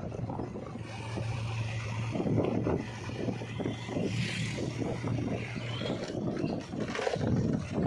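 A vehicle engine running steadily on the move, under rough wind and road noise.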